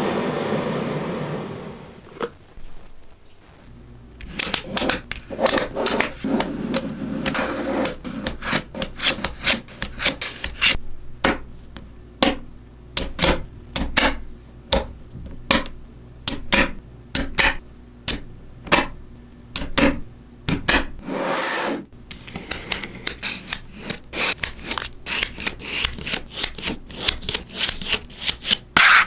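Small magnetic balls clicking sharply against one another as they are snapped into place one by one, at an uneven pace with the occasional quick cluster. A rushing noise fades out at the very start.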